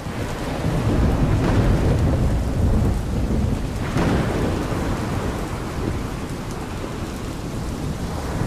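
Thunderstorm sound effect: heavy rain with rolling thunder. The rumble swells about a second in, a sharper crack comes about four seconds in, and then it slowly eases off.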